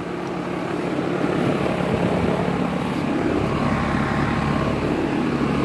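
Ruud Achiever RA16 2.5-ton central air conditioner condensing unit running: a steady hum from the compressor under the rush of its condenser fan, growing a little louder over the first two seconds.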